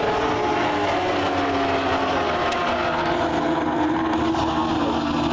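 Several racing motorcycles' engines running at high revs as a group of bikes passes along the track, their overlapping engine notes sliding slowly down in pitch.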